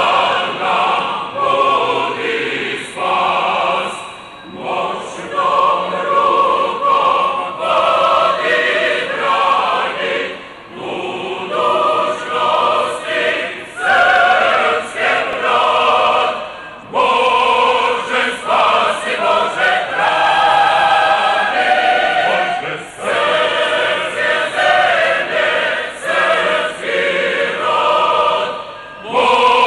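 Choir singing, in sung phrases of several seconds separated by short breaks.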